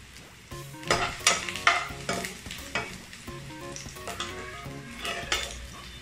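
Chopped garlic and ginger sizzling in hot oil in a nonstick wok, stirred with a slotted spoon that scrapes against the pan in several strokes, loudest a second or two in.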